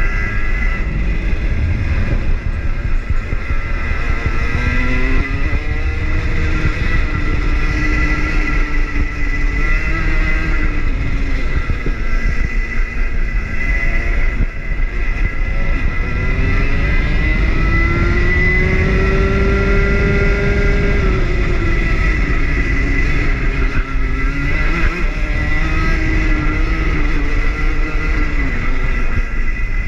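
Rotax hire kart engine heard from the driver's seat at racing speed, revving up and dropping back over and over as the kart goes through corners and straights, with the longest climb about two thirds of the way in. A heavy low rumble and a steady high whine run under it.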